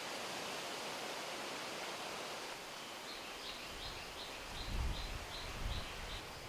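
Steady rushing outdoor background noise. From about three seconds in, a bird calls a quick run of short, high repeated notes, about three a second, and a couple of low bumps come near the end.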